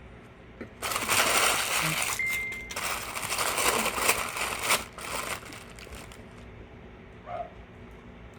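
Paper food wrapper crinkling as it is handled, in loud bursts for about four seconds, starting about a second in.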